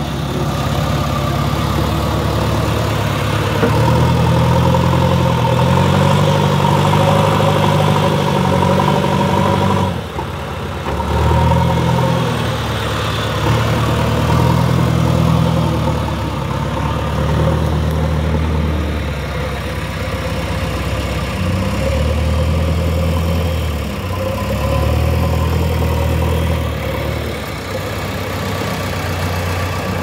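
JCB 3DX backhoe loader's diesel engine working as it scoops and carries a load of earth, its note rising and falling again and again as the loader arm is worked.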